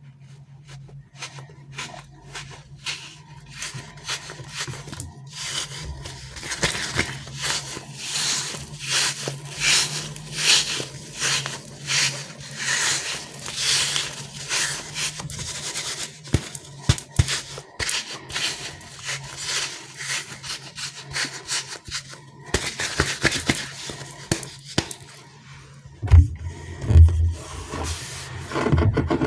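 A stretchy rubber squishy toy being squeezed and kneaded in the hands: continuous irregular squelching, crackling and rubbing of the rubbery skin against the fingers. A couple of low thumps near the end as it is set down on the table.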